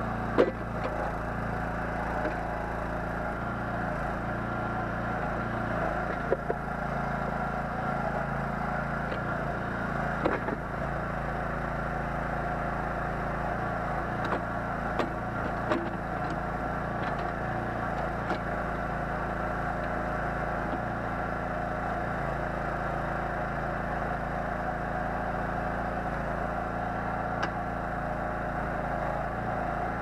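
Small 9 hp engine of a towable backhoe running steadily while it drives the hydraulic digging arm. A few sharp knocks come through as the bucket works in stony soil.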